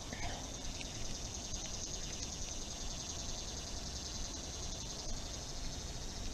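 Steady high-pitched insect chorus, a continuous trill, over a low outdoor background hum.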